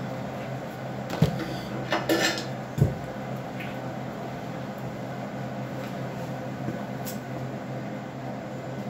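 A few knocks and a short scrape of a heavy metal tank being handled and moved, about one to three seconds in, over a steady hum.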